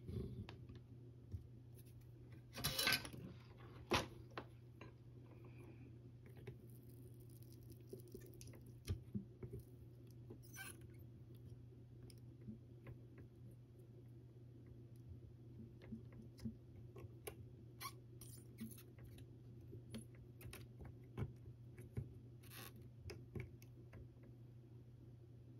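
Faint scattered clicks and taps of small tools and a lithium battery pack being handled during soldering, over a steady low hum. A louder rustle and a couple of sharp clicks come about three to four seconds in.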